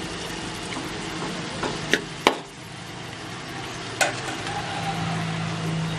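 Mango slices sizzling in an aluminium pan while a metal spoon stirs them, with three sharp clacks of the spoon against the pan, the loudest about two seconds in and the last about four seconds in. A low steady hum joins in near the end.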